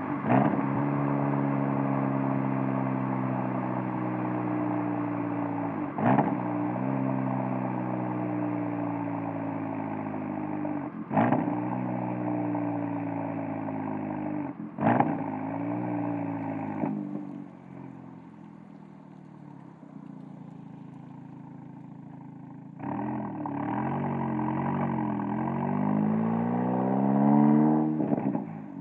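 VW Golf R turbocharged four-cylinder heard at the exhaust through a Borla S-type valved cat-back, the car under way. The revs sink slowly, with a few short sharp cracks along the way. It drops quieter for a few seconds about two-thirds through, then the revs climb again near the end.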